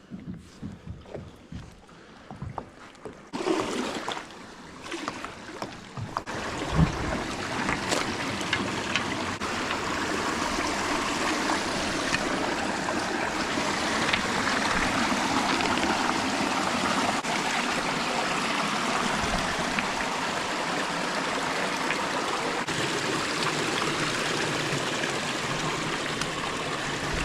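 A few irregular knocks and scuffs in the first six seconds, then the steady rushing of a flowing stream, which swells in over a couple of seconds and carries on evenly.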